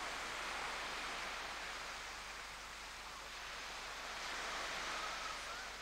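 Steady rushing noise of wind and small waves washing on the shore, easing a little and then swelling again.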